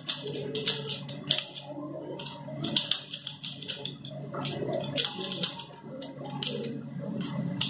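A plastic Rubik's cube being turned fast by hand, its layers clicking in quick runs of turns broken by short pauses.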